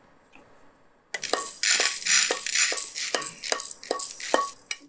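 Roasted chana dal, urad dal and dried red chillies being scraped out of a pan onto a ceramic plate: a quick run of scrapes and clinks with the dal rattling, starting about a second in, about two to three strokes a second.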